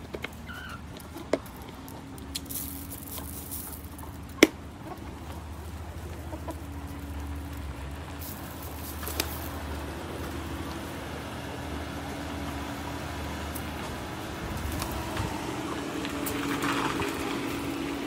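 Chickens clucking softly over a steady low hum, with a few sharp clicks, the loudest about four seconds in. The clucking is fullest near the end.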